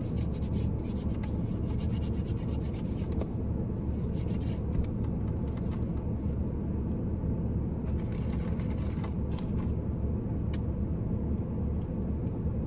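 Steady low rumble inside a parked car's cabin, with soft rubbing and rustling of hands being cleaned and a few light clicks now and then.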